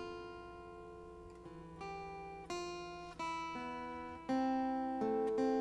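Solo guitar opening a song: single picked notes that ring on over one another, a new note every half second or so, growing louder near the end.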